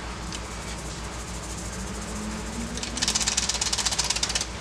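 Dry yeast granules shaken out of a small sachet into a glass bowl: a fast, fine rattle lasting about a second and a half near the end, over a steady low hum.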